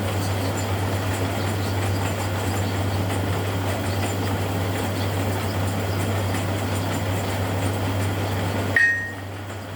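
Electric machine running steadily with a low hum. Near the end, a single ringing metallic clink, and the running noise drops away.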